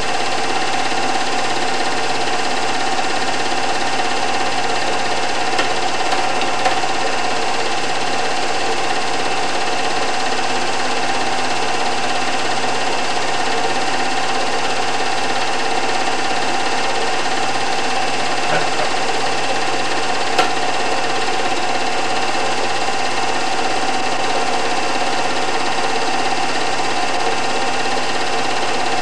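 Steady whirring clatter of a home-movie film projector running, as heard during the film's transfer.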